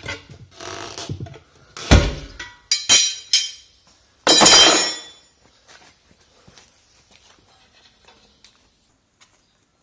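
Steel pry bars clanking against a steel truck wheel rim. There are several sharp metal clinks and a heavy thud about two seconds in, then a loud noisy rush just under a second long about four seconds in, and faint taps after.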